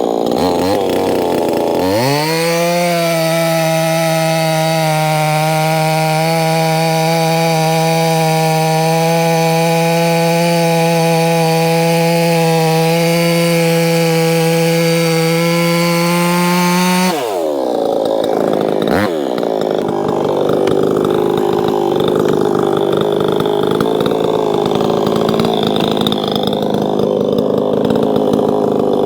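Proyama 68cc two-stroke chainsaw working firewood. About two seconds in it revs up to a steady high pitch at full throttle and holds it, then drops off sharply near the middle; the rest is a rougher, wavering engine sound.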